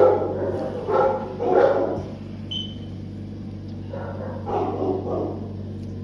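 A dog barking in short bursts, about five times, over a steady low hum.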